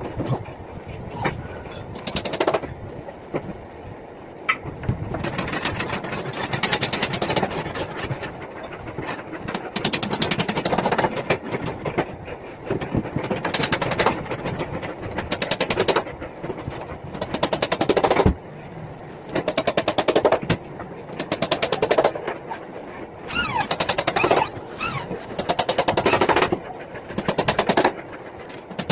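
Handheld electric drill driving screws into particle board in about half a dozen bursts of one to three seconds, each a fast rattle, with short pauses between screws.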